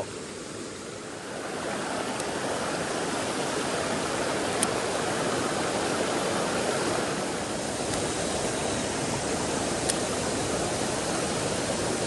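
Mountain stream rushing over rocks, a steady wash of water noise that grows a little louder about a second and a half in.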